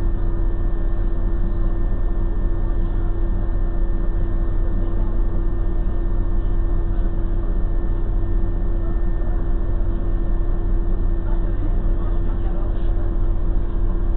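Vehicle engine idling while standing still, heard from inside the cab as a steady low drone with a constant hum.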